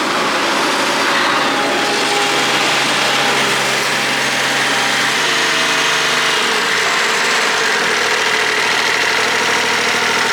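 Kubota D1105 three-cylinder diesel in a MadVac rider vacuum running at raised revs under a loud rush of air from the vacuum fan; about six or seven seconds in the engine is throttled back and its pitch falls.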